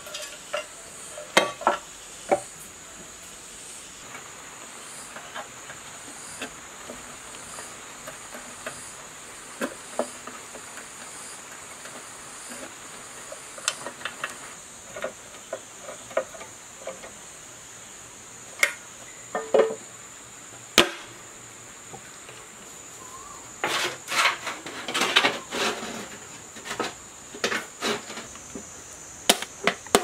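Scattered clicks, taps and small rattles of wires, bolts and plastic parts being handled and fitted on a generator's terminal box, with a quicker run of rattling taps near the end. A steady high-pitched insect drone runs behind, pulsing evenly at first.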